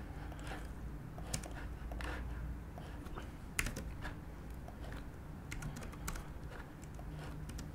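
Computer keyboard keystrokes and clicks, sparse and irregular, as values are typed into software parameter fields, over a low steady hum.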